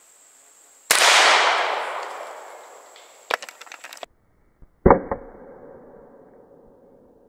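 A single shot from a Rossi Circuit Judge .410 revolving carbine firing 000 buckshot, with a long echo dying away over two to three seconds, followed by a few light clicks. Just before five seconds the shot is heard again, duller and more muffled, fading slowly.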